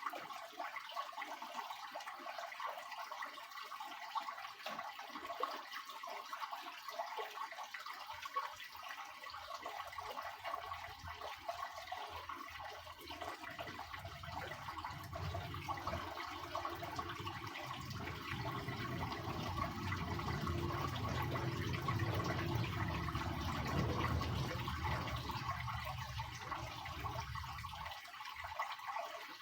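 Water running and splashing in a Soviet washing machine. A low rumble joins it about a third of the way in, grows louder, and stops shortly before the end.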